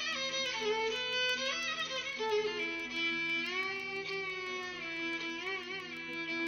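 Background music led by a violin playing a melody of held, sliding notes.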